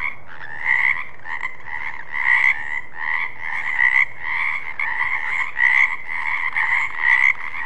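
Frogs croaking in a continuous chorus, with louder calls swelling roughly once a second. The sound cuts in and out abruptly.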